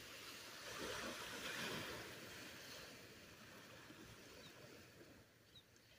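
Small waves washing onto a sandy beach, a soft surf noise that swells about a second in and ebbs away near the end.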